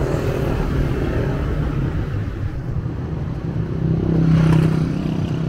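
City street traffic: a steady low rumble of passing cars and motorcycles, swelling for a moment about four seconds in as one vehicle passes close.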